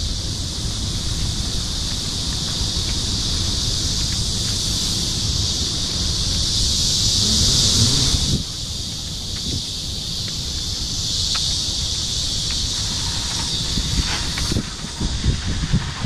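Cicadas shrilling in the trees: a loud, steady high hiss that swells, breaks off about eight seconds in, then swells again and drops back near the end. Under it, wind rumbling on the microphone.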